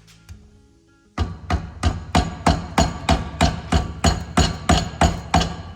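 Steady, evenly spaced hammer-like metal knocks, about three a second, starting about a second in, during work on a car's strut and top mount.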